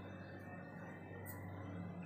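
Quiet room tone with a steady low hum and one brief, faint rustle about a second and a half in.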